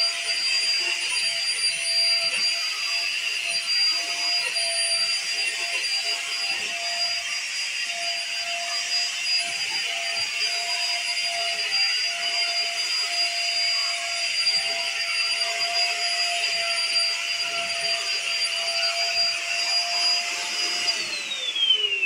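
Stick vacuum cleaner running steadily over a carpet: a high motor whine over airflow hiss. About a second before the end it is switched off and the whine falls away as the motor spins down.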